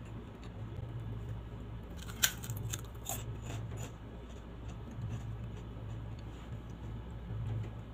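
Close-miked eating by hand: a short run of crisp clicks and crackles about two seconds in, the first the loudest, lasting a second or two, over a steady low hum.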